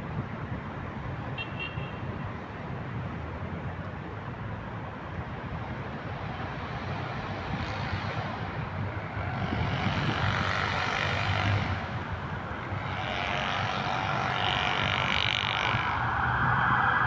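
Steady city street traffic noise, a continuous rumble of passing cars. It grows louder over the second half as vehicles pass closer.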